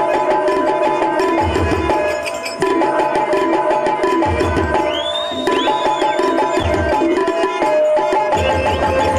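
Live drama accompaniment: a hand drum plays a quick rhythm under steady held notes, with a gliding melody higher up.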